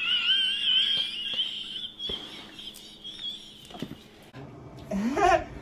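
A woman's high-pitched squealing laugh: a thin, wavering shriek that lasts about three and a half seconds and dies away, with a short burst of voice about five seconds in.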